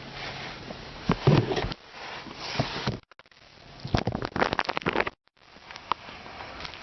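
Handling noises: rustling, light knocks and clicks as the rubber boot of a clutch release cylinder is handled, with the loudest knock about a second in. The sound drops out abruptly twice, at about three seconds and five seconds.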